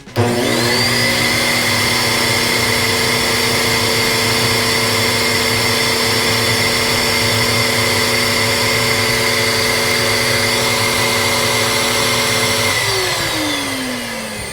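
Wet/dry vac motor switched on, whining up to speed within a second and running steadily while blowing air through a clogged air-conditioner condensate drain line. Near the end it is switched off and its whine falls away as it winds down.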